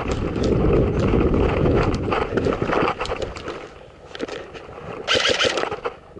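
A player running in airsoft gear: quick footfalls on grass with gear rattling, and wind buffeting a helmet-mounted microphone, loudest in the first three seconds. Quieter knocks and shuffling follow, with a short louder rustle about five seconds in as he settles behind cover.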